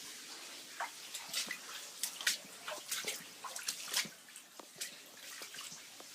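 Water in a flooded basement: irregular drips and splashes over a steady trickling hiss.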